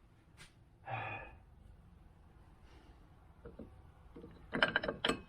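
A man's short sigh about a second in, then a quick run of sharp clicks and knocks near the end as tools and parts are handled during brake work.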